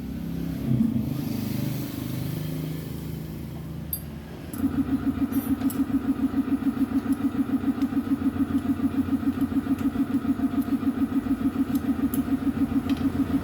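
A motorcycle engine starts about four and a half seconds in and settles into a steady idle, with an even pulse of about six or seven beats a second. Before it starts there is irregular low rumbling.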